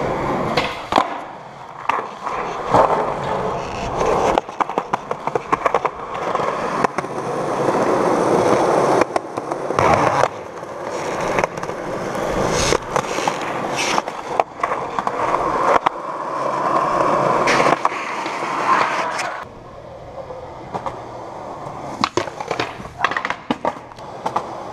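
Skateboard rolling over concrete, the wheels making a continuous rough rolling noise broken by sharp clacks of the board hitting the ground. The rolling drops away about twenty seconds in, leaving scattered clacks.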